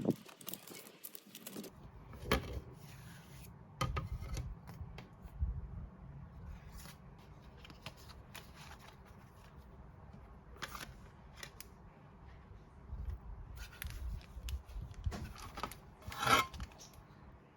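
Album packaging being handled and opened by hand: scattered rustles, scrapes and small knocks, with the loudest rustling burst near the end.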